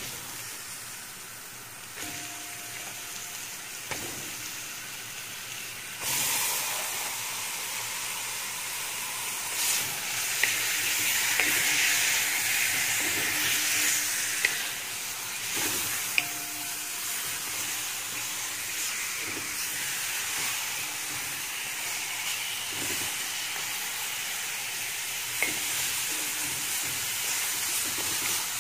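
Raw chicken pieces sizzling in hot oil in a metal pot with fried onions and spices, the hiss jumping louder about six seconds in as more pieces go in. A wooden spatula clicks against the pan now and then.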